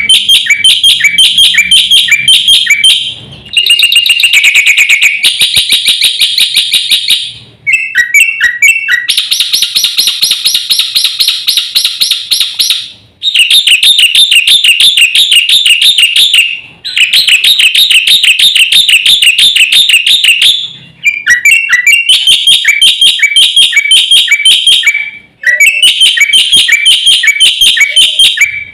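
Black-winged myna (jalak putih) singing loudly in long bursts of rapid, repeated chattering notes, each run a few seconds long with short breaks between, in the varied, filler-rich song of a bird in full voice.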